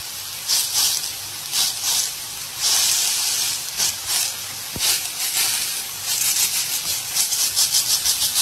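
Sausage slices sizzling in hot oil in a frying pan: a steady hiss that swells in bursts, with the crackle coming in quick pulses near the end.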